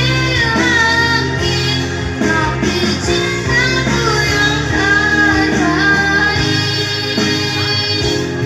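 Music: a sung song with a wavering lead voice over steady instrumental backing.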